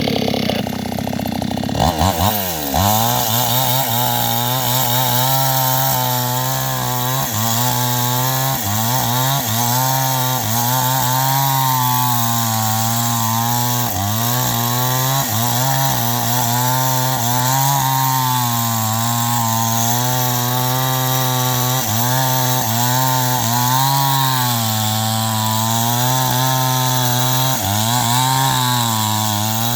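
New West 628 two-stroke chainsaw cutting wood under load. About two seconds in the engine note drops as the chain bites in, then repeatedly sags and recovers as it works through the cut.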